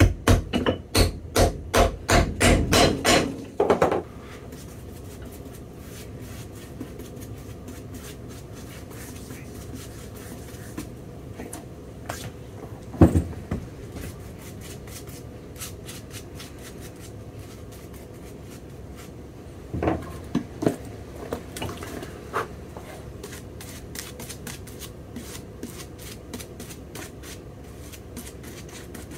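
Hammer blows on a leather heel stack with the boot on an iron shoe last: about a dozen quick strikes, roughly three a second, over the first four seconds. A single loud knock follows about thirteen seconds in, and a few more scattered knocks come around twenty seconds in.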